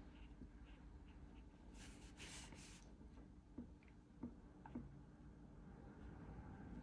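Near silence with the faint sound of a marker tip working on paper: one brief scratchy stroke about two seconds in, then a few light ticks.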